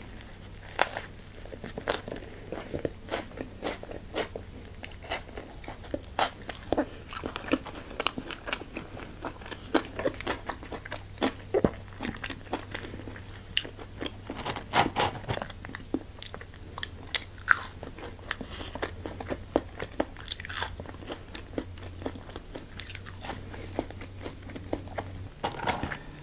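Close-miked crunching bites and chewing of crisp fast food: many sharp, irregular crunches one after another, over a faint steady low hum.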